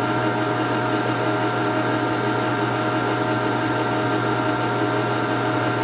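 Metal lathe running at a steady speed, a steady hum with several high steady tones, while a facing tool takes a light pass of about five thousandths across the steel muzzle of a Winchester 1886 barrel to square its crown.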